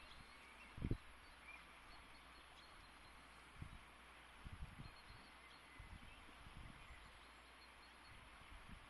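Quiet riverside ambience: a steady hiss of a fast-flowing river with faint, scattered bird chirps, broken by a few soft low thumps on the microphone.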